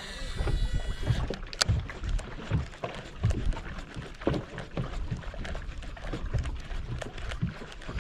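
Water slapping against a boat hull, mixed with wind buffeting the microphone, in irregular low thumps with a few sharp clicks.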